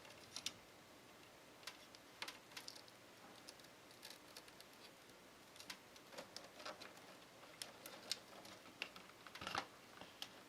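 Faint, irregular clicks and taps of hands fitting cables and parts inside a PC case, with a louder knock about nine and a half seconds in.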